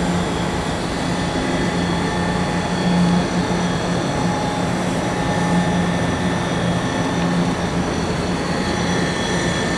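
Mitsui MSG-200MH surface grinder running steadily with its spindle motor and grinding wheel spun up: a constant hum with steady high-pitched whine tones above it.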